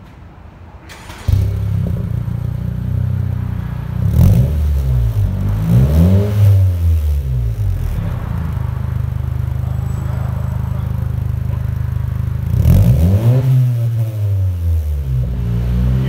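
Honda Civic engine through a new Invidia cat-back exhaust. The exhaust note comes in suddenly about a second in, then idles steadily and is revved a few times, the pitch rising and falling with each rev.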